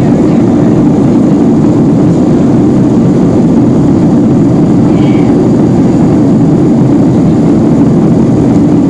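Boeing 757-200 jet engines and airflow heard inside the cabin during departure: a loud, steady, deep rumble.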